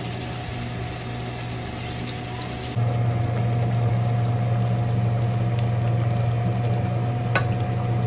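A steady low mechanical hum with a faint fixed higher tone, which steps up in loudness about three seconds in. Before that step there is a softer rushing hiss. One sharp click comes near the end.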